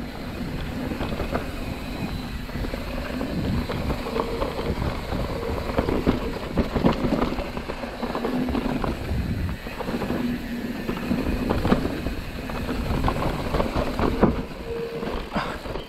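Mountain bike rolling fast down a dirt singletrack: the tyres rumble over packed dirt and leaf litter, and the bike rattles and knocks over bumps, with a faint hum that comes and goes.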